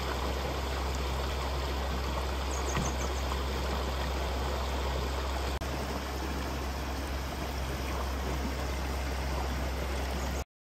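Shallow rocky stream running steadily, a constant rush of water over stones, cutting off abruptly near the end.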